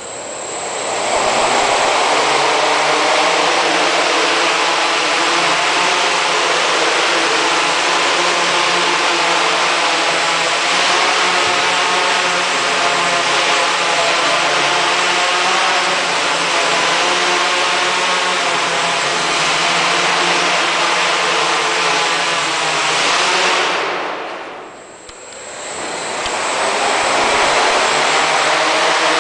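Four brushless motors and propellers of a homemade Arduino AeroQuad quadcopter running loud and steady, a whine with a stack of propeller tones. They spin up about a second in, wind down briefly near the end, then spin back up.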